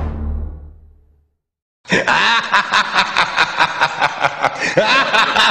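A low sound fades out in the first second, then a short silence. About two seconds in, loud laughter starts, pulsing several times a second.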